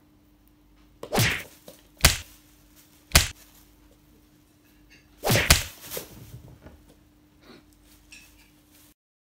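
A thin black plastic bag crackling in short, sharp bursts as cats swat and paw at it: four loud bursts about one, two, three and five seconds in, and a faint one later.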